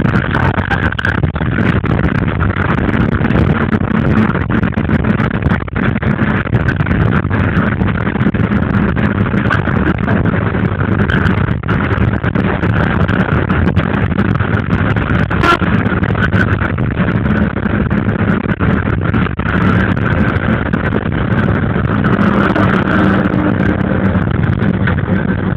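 Steady rumble of a moving train heard from on board, with scattered clacks from the wheels on the rails.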